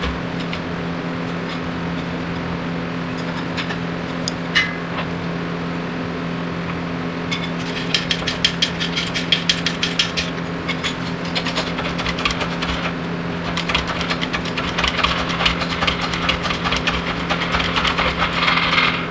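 Workshop sounds: a steady mechanical hum with dense, rapid clicking and rattling over it. The rattling grows busier twice, around the middle and toward the end.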